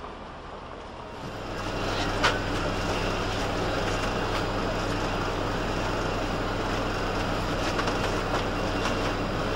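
Street noise with the rolling rumble of a tram on its tracks. A steady low hum comes in with it a little over a second in, and there is one sharp click about two seconds in.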